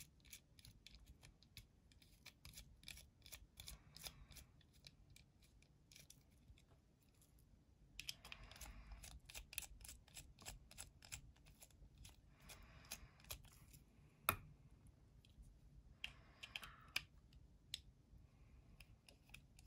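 Faint, scattered small clicks and soft scrapes of a small screwdriver and screws being worked into a folding knife's pocket clip, with one sharper click about two-thirds of the way through.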